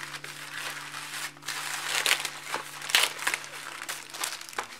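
Plastic mailing bag crinkling and rustling as it is pulled open by hand, with a few sharper crackles.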